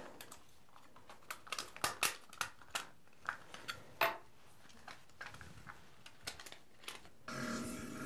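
Irregular sharp plastic clicks and snaps as the clips of a Sony DualShock 4 (CUH-ZCT2U) controller's shell release while its two halves are pried apart with a small flathead screwdriver; the loudest snap comes about four seconds in. A second of rubbing and handling noise follows near the end.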